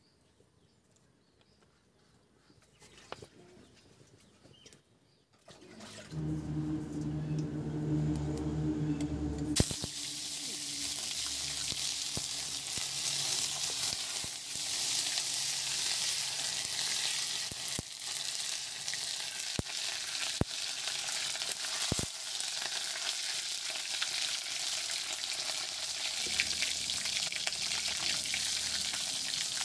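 Near silence at first, then a low hum for a few seconds. About ten seconds in, hot oil in an iron kadai breaks into a loud, steady sizzle as fish fries in it, with a few sharp clicks midway.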